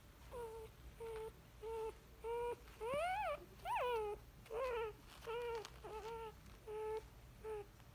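Belgian Malinois x German Shepherd puppies whining: a run of short whimpers at a fairly even pitch, one or two a second, with two longer cries in the middle that slide up and back down.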